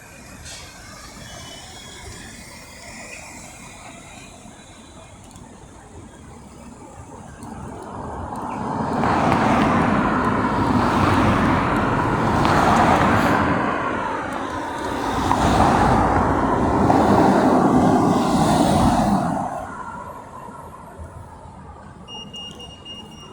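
Road traffic passing. A lower steady rumble of traffic comes first; from about a third of the way in, vehicles pass close by in two loud swells, which ease off near the end.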